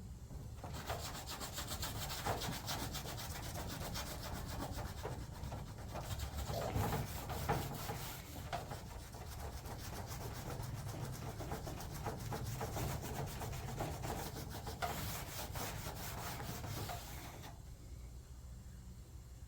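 Abrasive rubbing on an aluminum race-car body panel as it is cleaned and worked over: a steady, fast scraping that starts about a second in and stops abruptly near the end.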